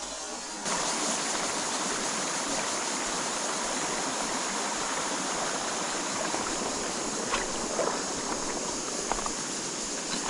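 Stream water rushing steadily over rocks, with a few small clicks in the last few seconds.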